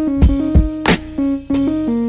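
Background music: plucked guitar notes over a steady beat with kick and snare hits.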